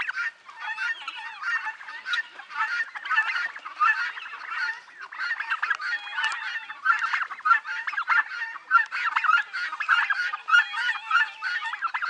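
A flock of helmeted guineafowl calling noisily: many harsh, rapidly repeated calls overlapping without a break.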